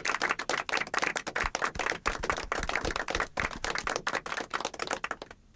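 Audience applauding: a dense, irregular patter of many hands clapping that stops near the end.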